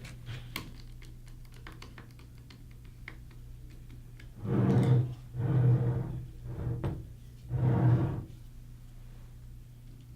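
Flathead screwdriver tightening the screws on a joystick contact block: light clicks of the blade in the screw heads, with four short louder scrapes around the middle as the screws are turned down.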